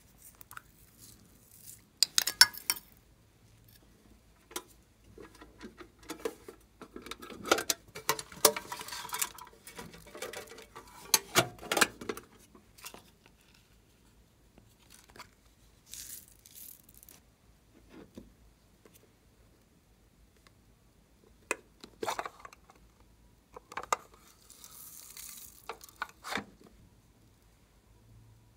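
Small hard plastic novelty containers being handled and pried open: sharp plastic clicks and knocks, the loudest a pair about two seconds in, with rustling, rattling and scraping in between.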